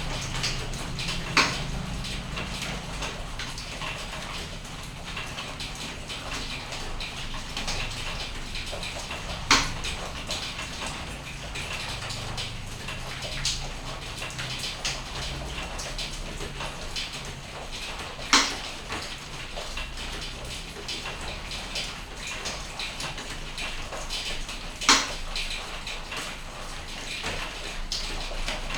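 Steady morning rain falling with a dense patter of drops, broken by five louder sharp clicks scattered through it.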